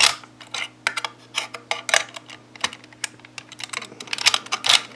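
Irregular sharp metallic clicks and clacks of a two-lever mortise sash lock being worked by hand, its latch and bolt snapping in and out.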